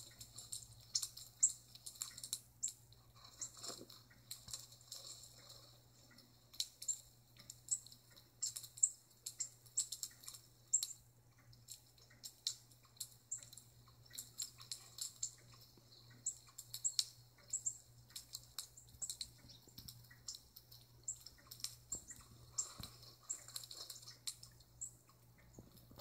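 Small birds chirping, played through a tablet's small speaker: quick, high chirps in irregular clusters, with a faint steady hum underneath.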